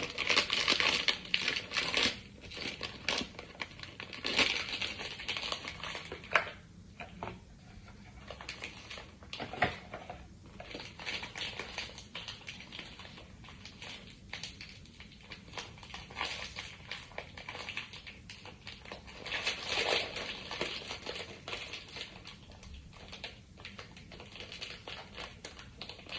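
Sonny Angel blind-box packaging being handled and opened by hand: an irregular crinkling and rustling of wrapper and box. It comes in bursts, loudest in the first two seconds, around four seconds in and again around twenty seconds in.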